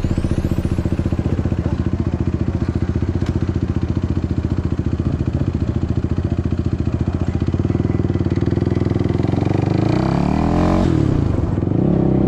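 Suzuki LT-R450 quad's single-cylinder four-stroke engine running steadily at low revs with an even, fast pulse. About ten seconds in the revs rise and fall, then settle at a higher, steady note as the quad pulls away.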